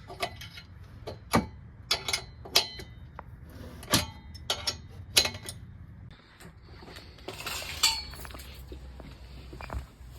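Hand tools clinking on metal while exhaust hanger bolts are tightened: about a dozen irregular sharp metallic clinks, each with a short ring.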